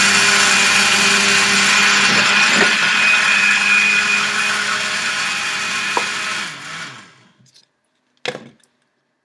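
Countertop blender running steadily with a high whine as it blends milk, coffee beans and ice. It is switched off about six and a half seconds in and spins down, and a short knock follows near the end.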